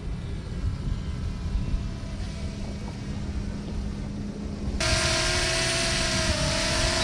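DJI Mini drone's propellers whirring as it is brought down to be caught by hand. About five seconds in the sound suddenly gets louder and hissier, with a wavering whine.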